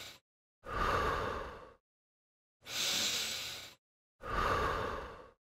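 Breathing in and out, paced to kneeling push-ups: a run of separate breaths about a second long each, with silence between them. A hissier breath alternates with a fuller, lower one, three full breaths in all after the tail of a fourth.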